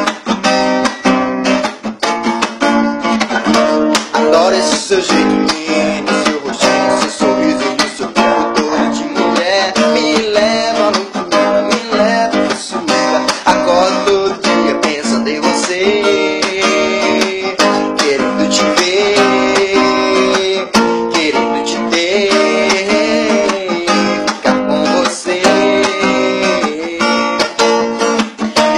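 Acoustic guitar strummed in a steady rhythm, playing chords as an instrumental introduction.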